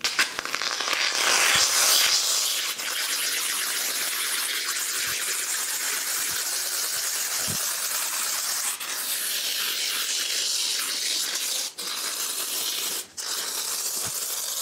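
Polyurethane foam adhesive hissing steadily out of an aerosol can through a dispensing gun as it is laid in beads on the back of a plasterboard; the spray stops briefly twice near the end.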